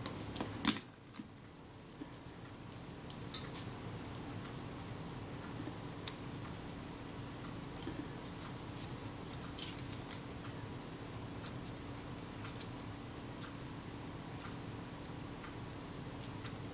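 Scattered small metallic clicks and taps from brass and aluminium rings of a Kodak Retina IIIS camera's shutter assembly being handled and fitted together by hand, a part that is jamming and not sitting right, loudest about half a second in. A faint steady hum runs underneath.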